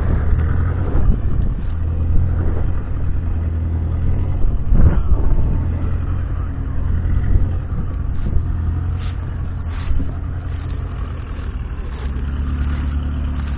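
The 6.2-litre six-cylinder diesel of a 1966 Ford Roadless Ploughmaster 90 tractor runs steadily while pulling a cultivator through stubble, with a few sharp knocks along the way. Its note shifts slightly near the end as the tractor turns.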